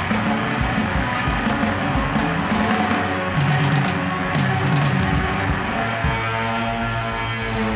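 Live rock band: electric guitar and drum kit playing hard. About six seconds in the drum hits stop and a held guitar chord rings on.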